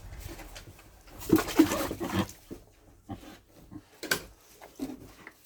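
Pigs grunting in a short loud burst about a second in, followed by scattered light knocks and scrapes as the droppings are picked up from the pen floor.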